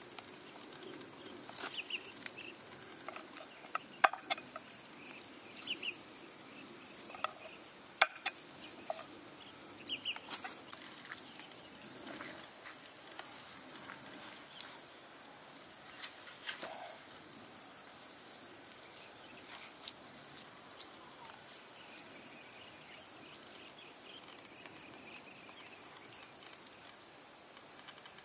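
Crickets trilling steadily in the background. Several sharp knocks stand out over the first eight seconds or so, and the insect trill carries on after them.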